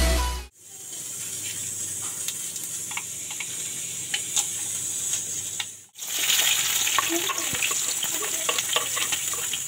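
The last half-second of electronic intro music, then hot oil sizzling and crackling in a kadai as a bay leaf and whole spices go in. After a short break about six seconds in, a louder, busier sizzle as chopped onion and green chilli hit the oil.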